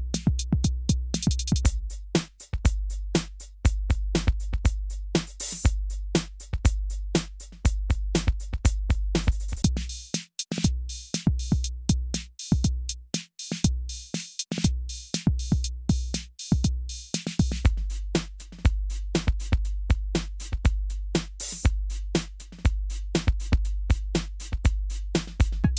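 Programmed drum machine beat with a deep kick, snare and busy hi-hats, switching between the analog Arturia Drumbrute Impact and sampled 80s drum machine kits from Addictive Drums 2. The character of the kit changes about 17 seconds in.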